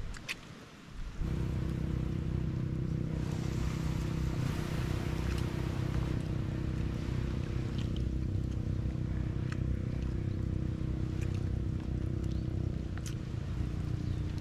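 Boat engine running steadily at a constant speed, coming in suddenly about a second in.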